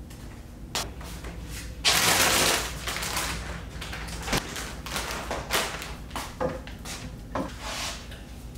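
Kitchen handling sounds: a loud, brief rush about two seconds in, then scattered knocks and clicks as a refrigerator door is opened and closed and a plastic gallon jug is handled, over a low steady hum.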